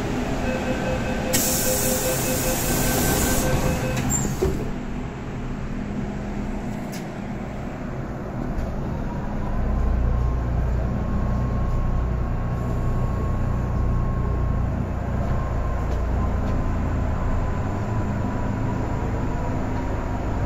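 MTR M-train (Metro-Cammell electric multiple unit) heard from inside the car as it leaves the platform. A steady warning tone with a hiss runs for the first few seconds, then a thud comes about four seconds in as the doors shut. The train then pulls away: a faint traction-motor whine appears, and a low running rumble grows louder from about ten seconds in.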